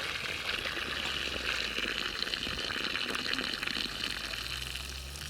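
Water pouring steadily in a continuous stream, stopping suddenly near the end.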